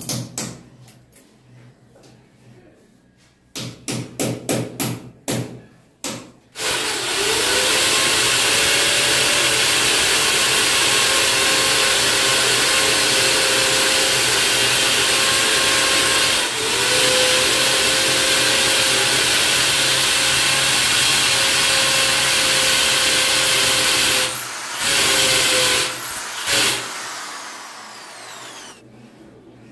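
Quick runs of rattling clicks at first, then a corded electric drill boring into a tiled wall: it runs steadily for about seventeen seconds, then gives two short bursts and winds down.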